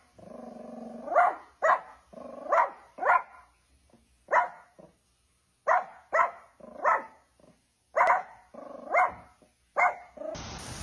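A dog barking repeatedly: about a dozen short, sharp barks, many coming in quick pairs.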